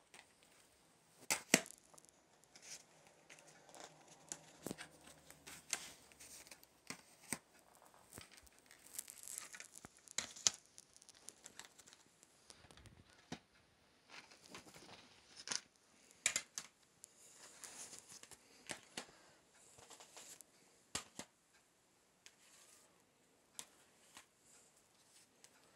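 Plastic CD jewel cases being handled and set down on a stack: scattered clicks and clacks with light rustling, the loudest about a second and a half in.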